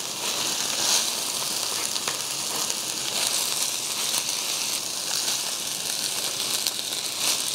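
Beef brisket fried rice sizzling on a hot stone grill, a steady hiss with faint ticks as it is stirred and tossed with two wooden spatulas.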